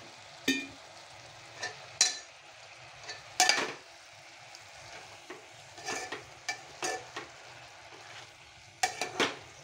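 A steel spoon stirring fenugreek leaves into fried onions in a metal pot, scraping and clinking against the pot at irregular moments, over a faint steady sizzle of frying.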